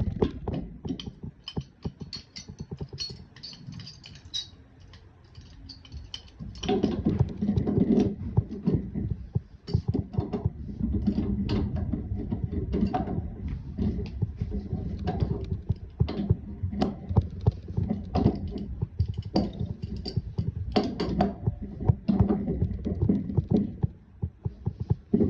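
Irregular clicks and knocks over low, uneven rumbling handling noise.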